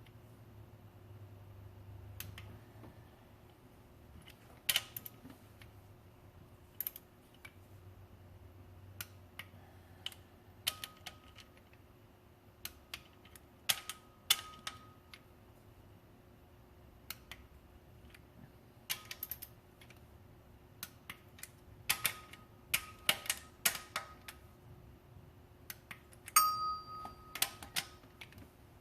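Torque wrench and ratchet clicking while the camshaft bearing cap bolts on a Toyota 2ZR-FE cylinder head are tightened: irregular sharp metallic clicks, bunched in quick runs toward the end, a few with a brief ring.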